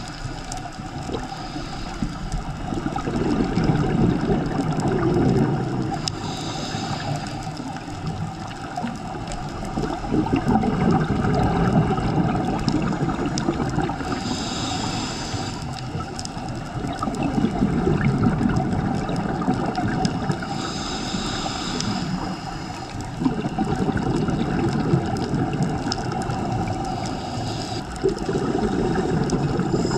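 Scuba diver breathing through a regulator underwater: a short hiss on each inhale, then a longer rumble of exhaled bubbles. Four slow breaths come about seven seconds apart.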